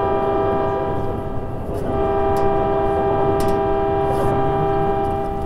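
Onboard running sound of a Keikyu New 1000 series electric train: a steady whine of several tones at once over the running rumble, breaking off briefly about two seconds in and then resuming, with a few short knocks.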